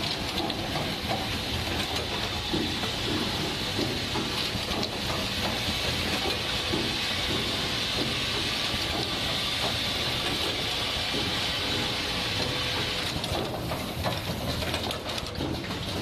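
Automatic power-cord plug crimping and inserting machine running: a steady hiss of compressed air with quick, light clicks and clacks from its pneumatic stations.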